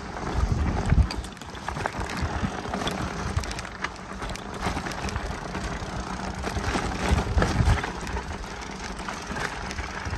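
Rigid mountain bike ridden over a dirt singletrack: tyres rolling on dirt with a steady patter of small rattles and knocks from the bike. Gusts of wind buffet the microphone about a second in and again around seven seconds in.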